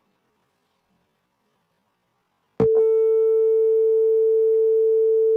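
Near silence, then about two and a half seconds in a buzzer on the PIC16F877A washing machine controller starts one loud, steady tone that is still sounding at the end. It signals that the wash cycle is done.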